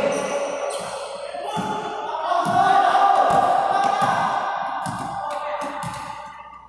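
Background song with singing, fading out toward the end, with a few scattered thumps underneath.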